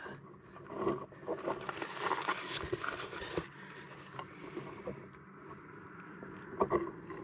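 Irregular rustling and scraping of handling noise while a hand-held camera is moved under a truck bumper, busiest over the first few seconds, with a couple of sharp clicks near the end.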